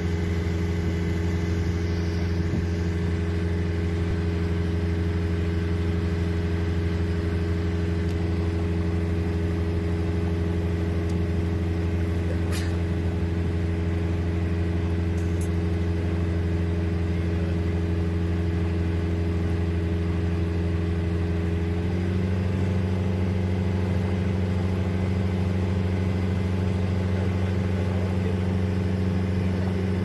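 Boat engine running steadily under way, its pitch stepping up slightly about twenty-two seconds in.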